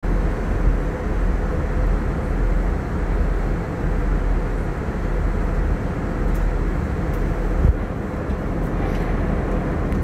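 Airliner cabin noise heard from a passenger seat: a deep, even rumble with a faint steady hum above it.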